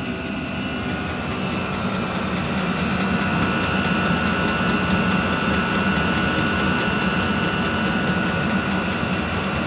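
Chinese diesel air heater running steadily on its first use, now blowing warm air: a constant hum with a high whine over it that grows a little stronger about a second and a half in.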